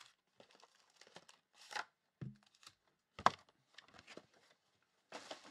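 Foil trading-card pack wrappers crinkling and being torn and handled: scattered short rustles, with a sharp click about three seconds in.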